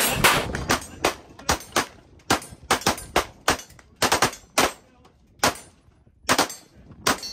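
A string of pistol shots from a Laugo Arms pistol fired at steel targets, about fifteen sharp cracks at an uneven pace, some coming in quick pairs.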